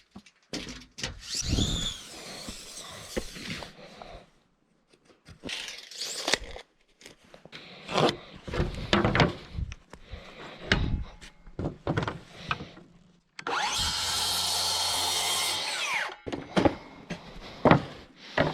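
Carpentry work sounds: a run of scattered knocks and clatters of tools and timber. Near the end a power tool runs steadily for about two and a half seconds.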